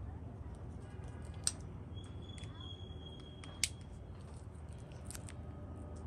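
Zippo lighter being handled: two sharp metallic clicks about two seconds apart, with a few fainter clicks between them, over a low steady hum.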